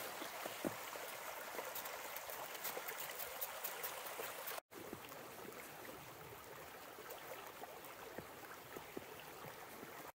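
Creek water running steadily under a footbridge, with a faint constant rush. The sound cuts out for a moment a little under halfway through, then carries on much the same.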